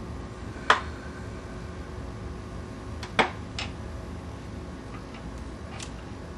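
Sharp clicks and taps of alligator-clip leads and a small flashlight bulb being handled on a wooden tabletop: two louder clicks, about a second in and about three seconds in, and a few fainter ones after, over a steady background hiss.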